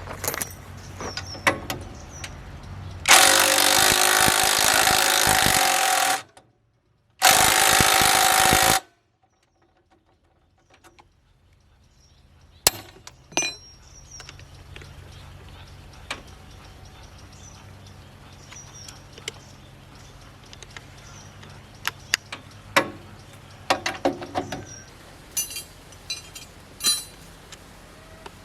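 A power tool runs loudly in two bursts, one of about three seconds and a shorter one of about a second and a half, during repair work on a tiller's shaft bearing. Scattered metallic clicks and taps of hand work follow.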